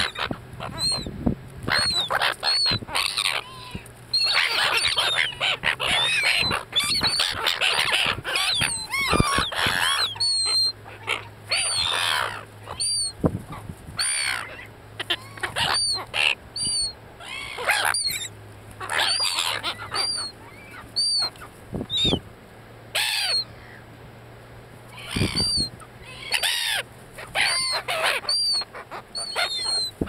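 A flock of silver gulls calling over food, a dense clamour of overlapping calls for the first ten seconds or so that then thins to scattered single calls.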